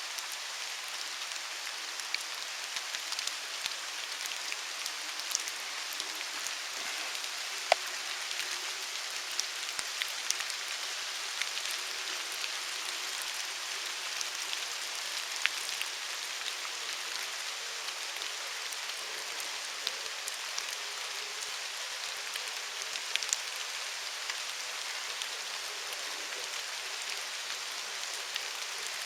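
Steady rain falling, an even hiss with scattered sharper ticks of individual drops striking close by.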